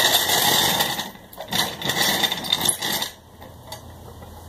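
Metal car tools clattering and scraping, a dense rattle for about three seconds that then drops to softer handling noise.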